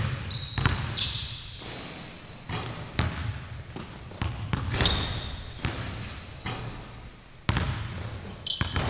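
Basketballs bouncing on a hardwood gym floor as two players dribble, the bounces landing at an uneven pace. Sneakers squeak briefly on the floor a few times, about a second in, around the middle and near the end.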